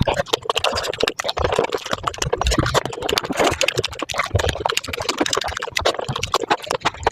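Pani puri being eaten at five times normal speed: a dense, fast run of crunching puri shells and slurping of the spicy water.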